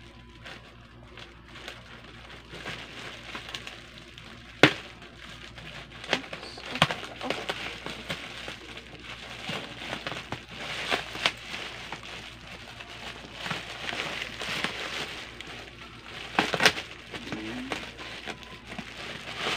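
Bubble-padded plastic courier mailer being cut open with scissors and pulled apart: steady crinkling and crackling of plastic with scattered sharp clicks, the loudest about five seconds in and again near the end.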